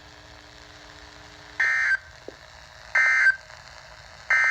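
NOAA Weather Radio EAS end-of-message code: three short, identical buzzing data bursts about 1.4 s apart, marking the end of the warning broadcast.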